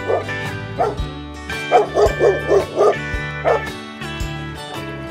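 Dog barking: a single bark about a second in, a quick run of five barks around two seconds in, and one more bark a little later. Background music with a steady beat plays under the barks.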